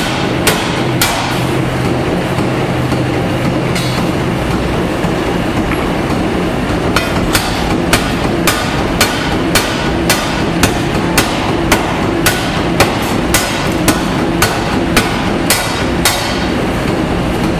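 Massey power hammer running and striking a red-hot steel bar: a few blows at first, a pause of several seconds with only the machine's steady running, then regular blows about two a second from about seven seconds in.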